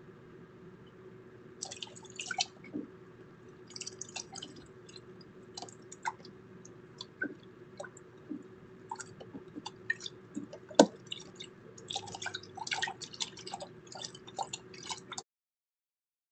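A cat at its bowl, making irregular small wet clicks and ticks, with one sharper click about eleven seconds in, heard through a security camera's microphone over its steady hum. The sound cuts off suddenly near the end.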